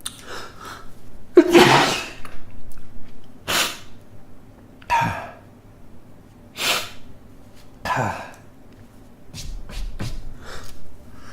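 A man sneezing in a fit: one loud sneeze about a second and a half in, then four more sneezes a second or so apart, with fainter short breaths and sniffs near the end.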